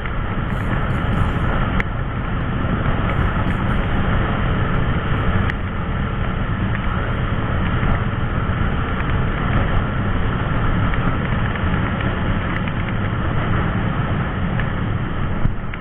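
Steady rush of wind and the single-cylinder engine of a Yamaha NMAX 155 scooter cruising at around 90 km/h.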